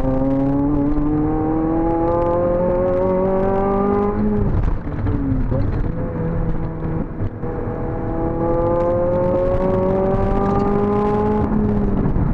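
Honda Civic Type R FN2's four-cylinder engine through a Cobra resonated sports exhaust, pulling through the gears. The engine note climbs steadily for about four seconds, drops at a gear change, runs lower for a few seconds, then climbs again and drops once more near the end.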